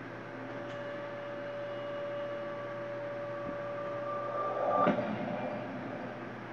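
Horror-trailer score played through computer speakers: a held high tone swells for about four seconds and ends in a sudden loud hit a little under five seconds in, which then dies away.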